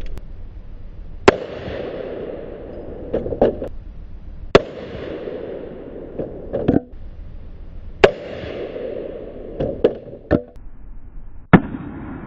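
Four gunshots, each about three and a half seconds apart, fired at a homemade armour plate. Each loud crack rings out briefly. Between the shots come smaller knocks and clatters.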